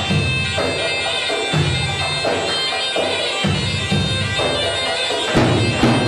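Turkish folk dance music: a shrill, reedy wind instrument plays a continuous melody over the deep beat of davul bass drums.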